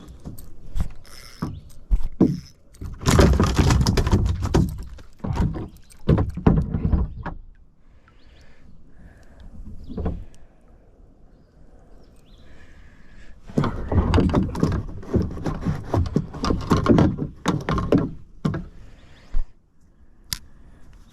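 A hooked northern pike being landed at a kayak: two bouts of thrashing, knocking and thumping against the boat, with single sharp knocks in between.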